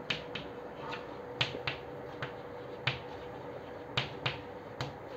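Chalk writing on a chalkboard: about a dozen short, sharp taps and clicks at an uneven pace as the chalk strikes and drags across the board.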